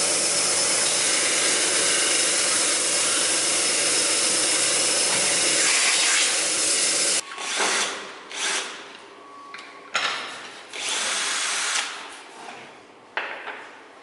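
A bench belt-and-disc sander runs steadily while a piece of wood is sanded on its belt. About seven seconds in it stops abruptly, and a cordless drill follows in several short bursts as it bores into wood, each burst winding down.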